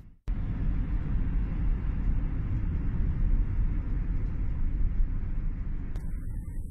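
Steady road rumble of a car driving, heard from inside the cabin; it breaks off abruptly near the end.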